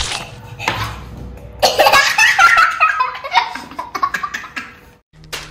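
A young child laughing hard: a long, high run of laughter falling in pitch, breaking into shorter bursts as it fades. A sharp knock comes just at the start.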